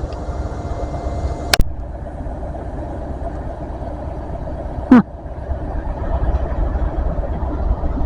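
Diesel train engine idling with a steady low rumble. A sharp click comes about a second and a half in, and a loud, short squeal falling in pitch comes about five seconds in.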